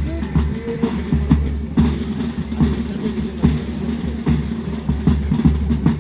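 Military band playing, with drums keeping a steady marching beat under sustained band notes.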